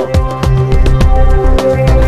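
Background music with a steady drum beat over sustained bass and held chords.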